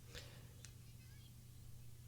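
Near silence: a low steady electrical hum, with a faint short rustle and a single soft click within the first second.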